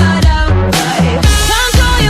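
Pop/R&B backing music with a steady beat and a sung vocal line.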